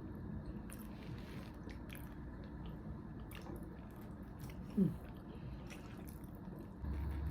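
A person chewing and eating, with scattered small mouth clicks. About five seconds in comes a brief sound falling in pitch, the loudest moment, and near the end a low steady hum starts.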